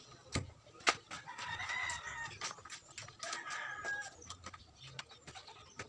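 Chickens calling, with a rooster crowing about a second and a half in and another call a couple of seconds later. Two sharp clicks near the start as cables and plugs are handled.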